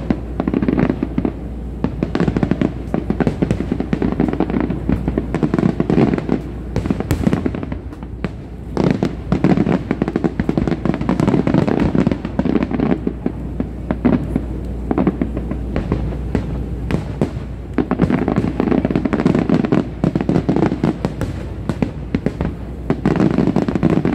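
Fireworks display: rapid volleys of shell bursts and crackling, coming in several waves with brief lulls between them.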